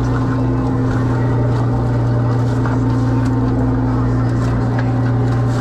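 Steady drone of a crab fishing boat's engine and deck machinery, with light scattered clicks from the crabs being handled in the sorting tray.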